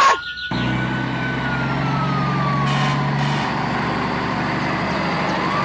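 Vehicle engine sound effect running steadily at a low pitch, with a fainter siren-like tone that slowly falls and then rises again near the end.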